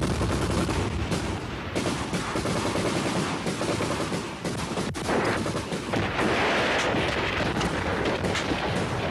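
Sustained gunfire from automatic weapons: many rapid, overlapping shots with no break.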